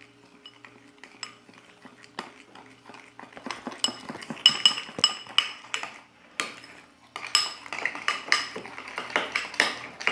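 A spoon stirring slime mixture in a bowl, clinking repeatedly against its sides. Faint at first, it turns louder and rapid about three and a half seconds in, pauses briefly around six seconds, then starts again.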